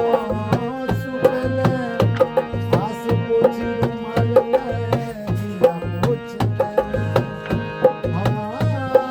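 Instrumental music of a Kumaoni folk song: a hand drum beats a steady, even rhythm under a held melody line, with no singing.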